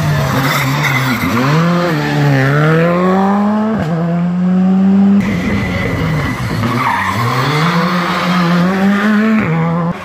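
Two rally cars in turn through a tight hairpin. Each engine's revs drop as it brakes and turns in, then climb steadily as it accelerates out, ending in a quick gear change, with tyre noise from the tarmac. The sound breaks off abruptly about five seconds in, where the second car takes over.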